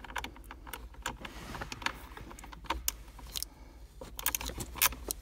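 Scattered light metallic clicks and clinks of hand tools and metal fittings being handled at a car battery's hold-down, with some rustling. The clicks come irregularly and bunch together near the end.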